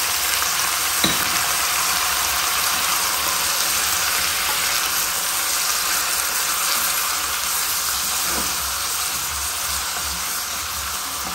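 Raw chicken pieces sizzling steadily in hot oil with sautéed onion and garlic in a pot, turned over with a silicone spatula.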